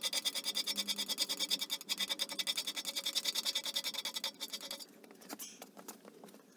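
Hand scraper pushed in rapid, evenly paced strokes along a cast-iron lathe bed way, each stroke a short rasping scrape with a metallic ring, taking metal off the worn ways. The strokes stop about five seconds in, leaving a few light clicks.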